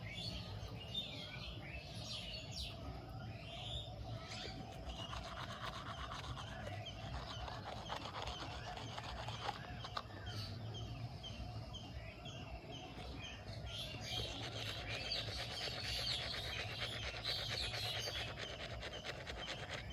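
Several birds chirping and calling at dawn over a marshy lake, short calls overlapping throughout, with a run of quick repeated calls in the second half. A steady low hum runs underneath.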